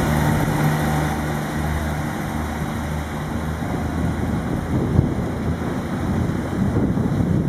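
Irish Rail 2600-class diesel multiple unit pulling away from the station. Its diesel engine drones steadily at first, then from about three seconds in a louder low rumble of wheels on the track takes over as the railcar draws near.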